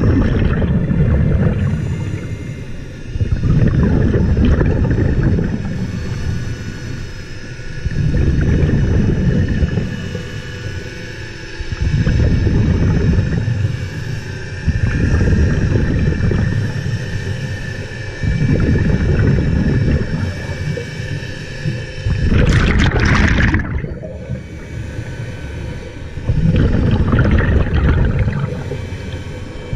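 Scuba diver breathing through a regulator underwater: exhaled bubbles rumble in low bursts about every four seconds, with one sharper, higher hiss about two-thirds of the way through.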